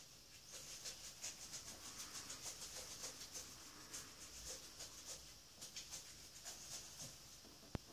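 Faint, rapid scratchy scrubbing of a manual toothbrush's bristles on teeth, several strokes a second, with a sharp click near the end.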